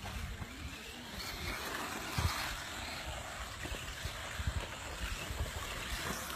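Wind rushing over the microphone: a steady noisy hiss with gusty low rumbling and a few light thumps.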